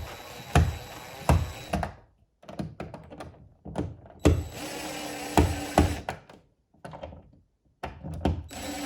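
Sharp knocks and clicks of a light switch and its wall plate being handled, pressed and screwed into an electrical wall box, a run of them about 0.7 s apart, with a steady hiss between the knocks in two stretches.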